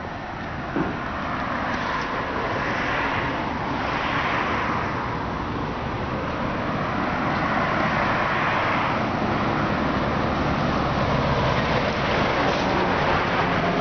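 Road traffic on the street alongside: a steady hiss of tyres and engines that swells and fades as cars pass one after another.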